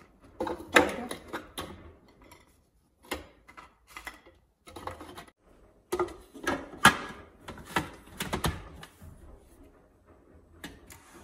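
Digestive biscuits dropped one by one into a plastic food processor bowl, then the plastic lid fitted and clicked into place: irregular clicks and clacks, loudest a few seconds past the middle.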